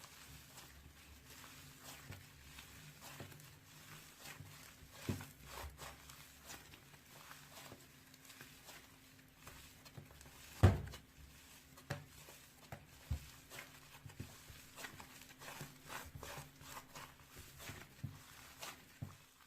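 Slime being handled and pressed by hand, giving an irregular run of small sticky clicks and pops over a faint low hum, with a sharper knock about ten seconds in.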